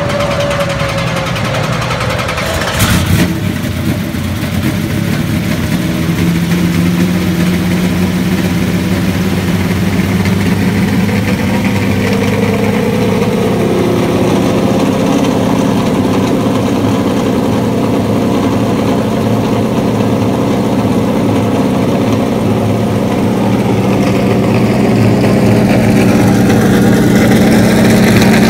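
NASCAR Cup race car's V8 engine running at idle. There is a short loud burst about three seconds in, and it gets slightly louder near the end.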